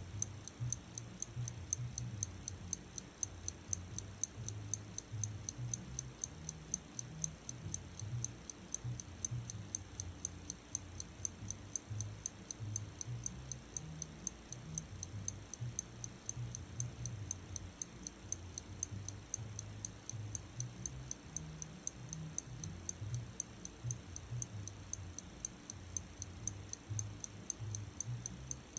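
Pocket watch ticking steadily in a fast, even rhythm. Beneath it runs a low, uneven bass rumble, which the uploader says is an unintended background sound.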